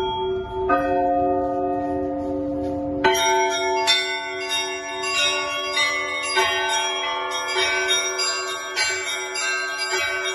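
Russian Orthodox church bells ringing: a few bells hum with slow strokes. About three seconds in, the small high bells join in a fast, dense peal over the lower bells.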